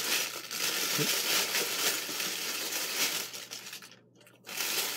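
Paper bag rustling and crinkling as it is handled, stopping briefly about four seconds in and then starting again.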